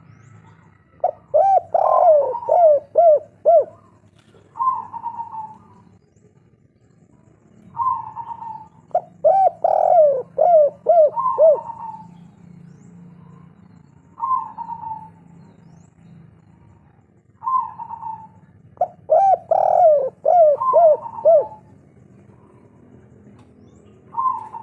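Spotted dove (tekukur) of the 'kuk 3' song type cooing: three loud song phrases, each a quick run of about five short arched coos, come roughly eight seconds apart, with single coos in between.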